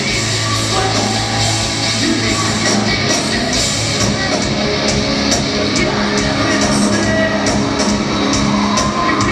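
Live rock band playing loud, amplified through the PA and heard from the audience in a large hall: electric guitars, bass and drums with shouted and sung vocals.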